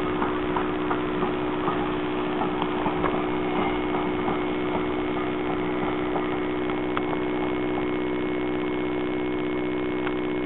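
LBSCR A1X 'Terrier' steam tank engine pulling away slowly with a brake van, its light exhaust beats coming a few a second and thinning out after about four seconds, over a steady droning hum.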